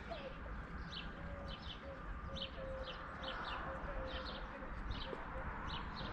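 Birds chirping: short high chirps repeating about twice a second, over a low, drawn-out note.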